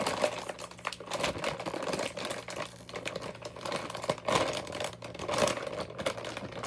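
Plastic candy packaging crinkling and crackling as it is handled and opened.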